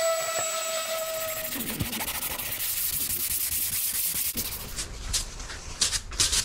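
An electric orbital sander runs on the fibreglass surfboard deck, its steady motor tone cutting out about a second and a half in. It is followed by hand sanding and brushing of the board: a run of rubbing strokes, loudest near the end.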